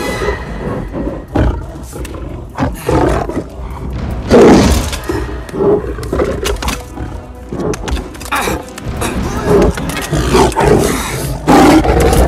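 A lion snarling and roaring in repeated bursts as it attacks, over film score music. The loudest roar comes about four and a half seconds in.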